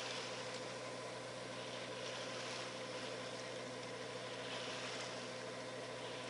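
Hallberg-Rassy 36 sailboat's inboard diesel engine running steadily under motor, a constant low hum, with water hissing past the hull.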